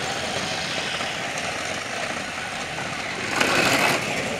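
Battery-powered Trackmaster toy train motors whirring as the trains run along plastic track, a steady mechanical whir. Near the end a louder burst of noise lasts about half a second.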